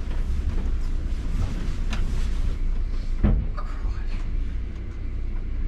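Tour coach's diesel engine running at low speed as the coach is manoeuvred into the tight rail wagon, with a sharp knock about three seconds in.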